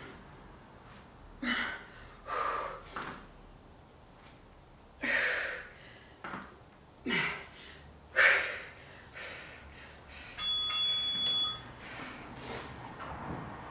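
A series of sharp, breathy exhales during a dumbbell exercise. About ten seconds in, a bell-like interval-timer chime rings for just over a second, marking the end of the one-minute move.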